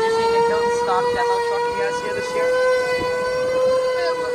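Fire truck siren sounding one long, steady wail, its pitch creeping slowly upward and then holding level.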